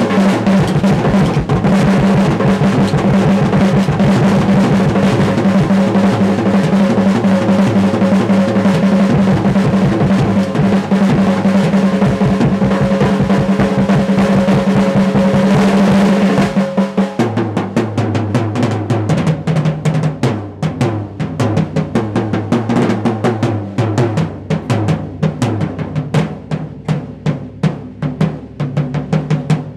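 Acoustic drum kit solo. A fast, dense roll of drum hits runs for the first half. About 16 seconds in it breaks into separate strikes around the toms and bass drum.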